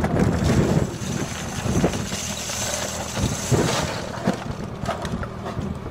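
Ammunition being handled and loaded into plywood crates: metal ammo cans and boxes knocking and clunking, and loose brass cartridges rattling and sliding in a hissy rush from about two seconds in for nearly two seconds, over a steady low drone.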